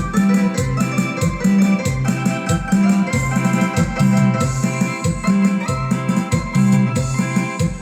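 Band playing a Mixtec dance song: an electronic keyboard melody over a bass line that repeats, with a steady beat.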